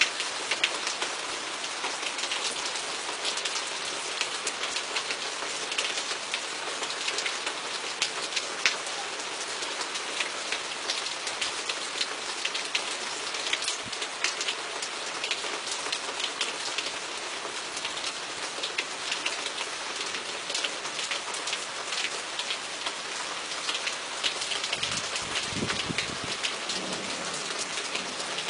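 Steady rain with sharp drips striking a surface close by, and a low rumble of thunder rolling through for a couple of seconds near the end.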